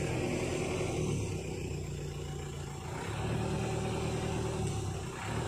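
Diesel truck engine running, its sound swelling louder and easing back twice.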